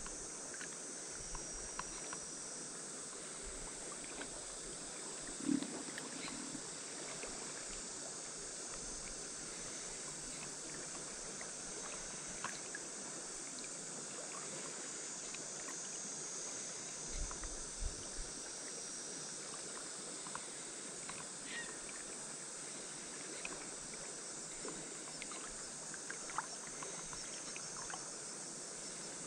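Steady rush of river current flowing over the riverbed, with faint high insect chirring at times and a few small knocks.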